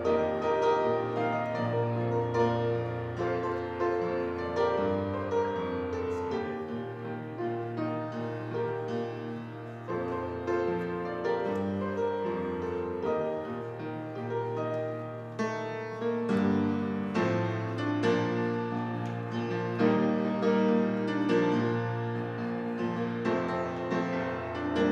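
Solo piano playing a slow, sustained instrumental prelude of held chords and melody.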